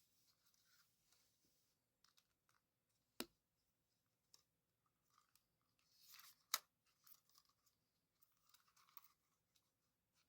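Faint clicks and scratches of a DJI Mini 4 Pro drone's plastic arm and metal hinge being handled and worked into place, with two sharper clicks, one about three seconds in and one past the middle.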